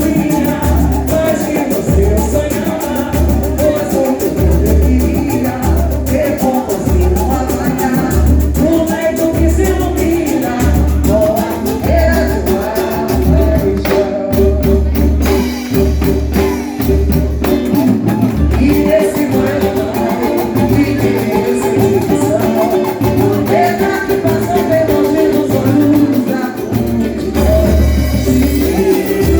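Samba group playing a samba song with a singing voice over it, and a deep drum beat about once a second.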